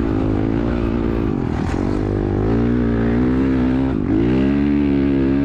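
Honda CRF450R single-cylinder four-stroke dirt bike engine running hard under throttle on sand. Its pitch drops briefly about a second and a half in and again about four seconds in, then climbs and holds.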